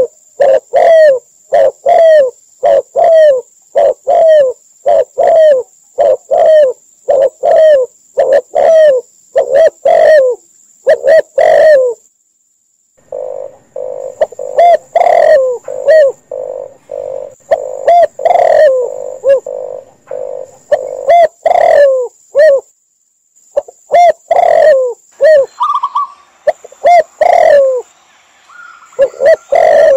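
Doves cooing, from a mixed recording of spotted, red collared and zebra doves. A long series of short, low, falling coos comes about two a second, breaks off for about a second some twelve seconds in, then resumes, with a few higher calls near the end.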